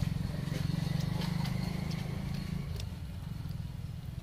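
An engine running nearby, a steady low hum with a fast pulse that is loudest at first and eases off about two and a half seconds in, with a few faint clicks over it.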